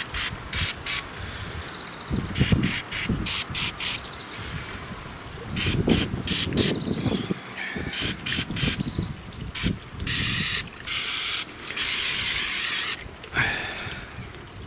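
Spray can of easing oil being squirted in a series of short bursts, followed by two longer sprays of about a second each in the later part.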